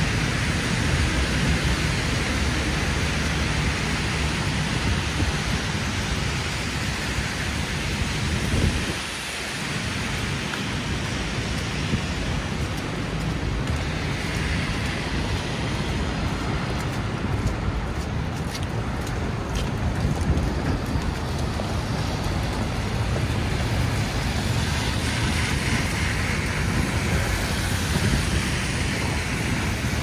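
Steady snowstorm street noise: a continuous wet hiss over a low traffic rumble, which dips briefly about nine seconds in.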